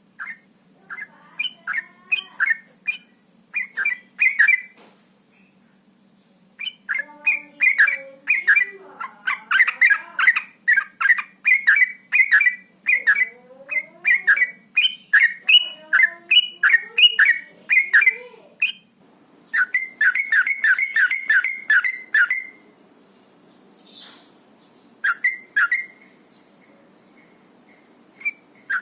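Yellow-vented bulbul (trucuk) singing its rapid 'ropel' song: quick bursts of sharp chattering notes, then a long run of fast phrases in the middle and a tight fast series after it, with a few notes again near the end. This fast song is used as a lure call to set other bulbuls singing.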